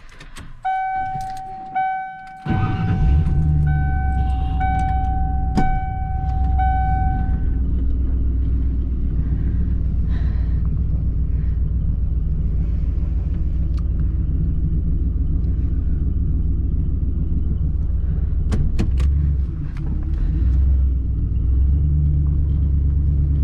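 Pickup truck starting: its warning chime dings about once a second while the engine catches about two and a half seconds in. The chime stops after several seconds, and the engine runs on steadily.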